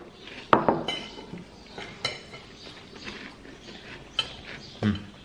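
Metal spoon clinking and scraping against a white ceramic bowl while eating: about six separate clinks, the loudest about half a second in, one ringing briefly.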